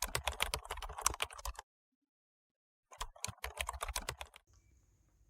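Computer keyboard typing in quick, dense clicks, in two runs with about a second of silence between them; near the end the typing stops and only a faint hum remains.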